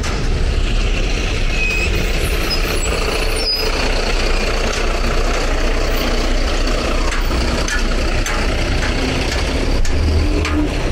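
City street traffic: a steady rumble of vehicle engines and tyres, with a heavy vehicle such as a truck or bus among them, and a brief high squeak about three and a half seconds in.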